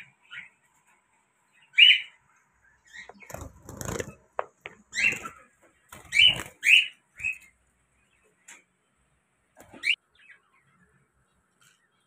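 Caged finches calling in short, sharp chirps, about a dozen of them spread over the first ten seconds. A stretch of rustling sits in the middle.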